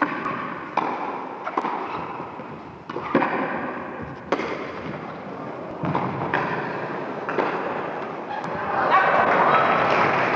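A tennis rally: about ten sharp racket strokes on the ball, roughly a second apart, echoing in a large indoor hall. About nine seconds in, the crowd breaks into applause as the point ends.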